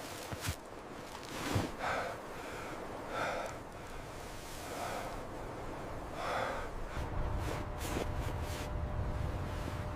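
Heavy breathing, a loud breath about every second and a half, with a steady low rumble coming in during the second half.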